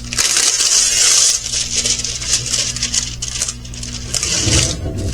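Crinkling and rustling of a plastic-covered diamond-painting canvas being handled and smoothed by hand, loudest in the first second or so, then crackling on more lightly.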